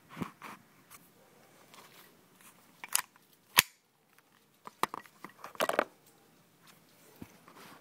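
A scattered series of sharp clicks and knocks. The two loudest are single strikes about three and three and a half seconds in, and a short rustling cluster comes near six seconds.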